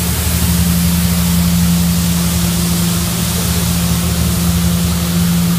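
Tymco 600 regenerative-air street sweeper passing close by, its engine and blower running as a steady hum under a loud, even hiss.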